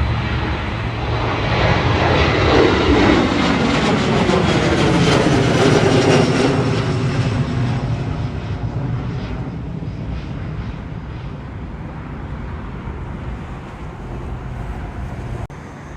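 Jet airliner's engines as it passes by. The sound swells over the first few seconds, the pitch falls as it goes past, and then it slowly fades away.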